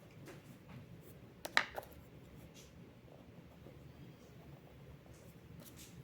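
Faint scratching of a coloured pencil on paper, with a brief cluster of two or three sharp clicks about one and a half seconds in.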